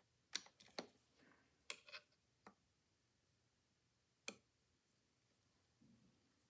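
A few faint, sharp metallic clicks and taps as small tools are handled against the Amberola V phonograph's motor parts. There is a cluster of clicks in the first couple of seconds and one louder click about four seconds in.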